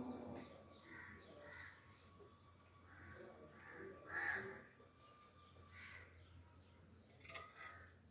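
Crows cawing in a series of short, faint calls, the loudest about four seconds in.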